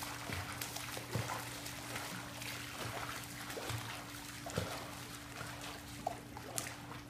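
Swimming-pool water sloshing and trickling, with scattered small splashes from a swimmer stroking just under the surface. A steady low hum runs underneath.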